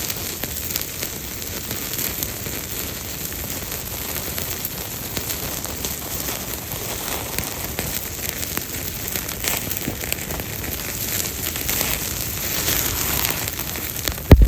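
Campfire of damp forest wood burning with steady hissing and many small crackles and pops. A single loud thump comes near the end.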